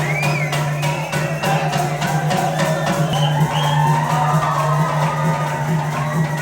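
Music with a steady percussion beat and a gliding melody over a low held tone.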